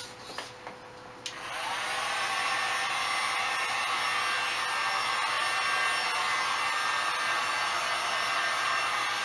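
Electric heat gun being used to force-dry primer. A few clicks come first, then a little over a second in it starts up: its fan whine rises as it spins up, then settles into a steady blowing rush.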